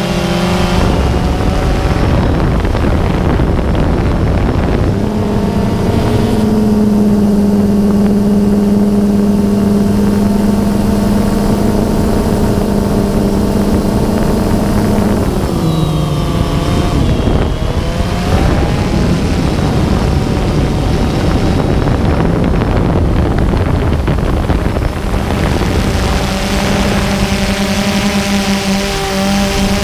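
DJI Phantom 2 quadcopter's electric motors and propellers running with a steady hum, with wind noise. About halfway through the pitch dips and climbs back as the motor speeds change.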